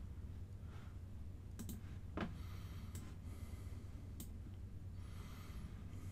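A few scattered computer mouse clicks, the loudest about two seconds in, over a steady low hum.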